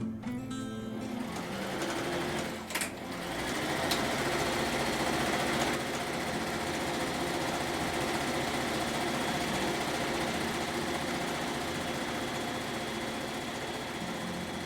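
Electric sewing machine running steadily, stitching fabric, with a brief stop about three seconds in; guitar music fades out at the start.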